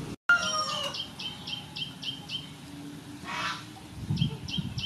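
A bird calling in the background: a loud call opens just after a brief dropout in the sound, followed by a fast run of short high notes, about three a second. The run stops partway through and starts again near the end.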